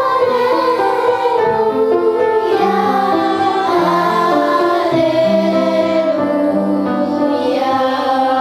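A girl singing long held, wavering notes over an instrumental accompaniment of held notes.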